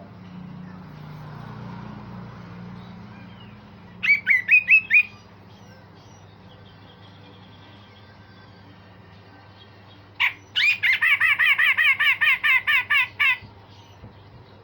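Cucak jenggot (grey-cheeked bulbul) singing. About four seconds in, it gives a quick burst of about five loud notes. Later, after a single note, it gives a fast run of about fifteen repeated notes lasting about three seconds.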